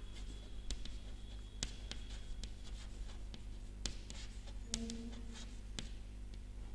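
Chalk writing on a blackboard: irregular taps and short scratchy strokes as letters are formed, over a steady low hum.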